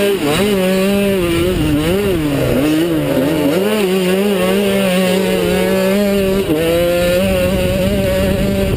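Youth mini motocross bike's engine at race speed, heard from a helmet-mounted camera with wind noise over it. The pitch rises and falls with the throttle through the turns for the first few seconds, then holds high and steady, with a brief dip about six and a half seconds in.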